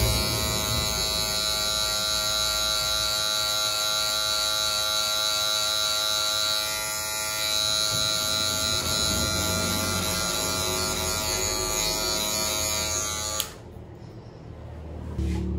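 Electric hair clipper running steadily, then switched off suddenly near the end.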